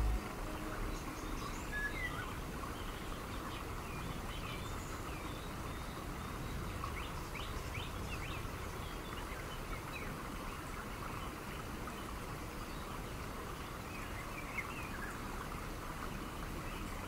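Outdoor ambience: many short bird chirps over a steady background hiss.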